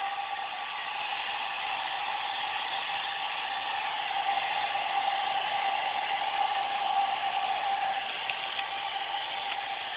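Hair dryer blowing steadily: a constant rush of air with a steady whine from its motor.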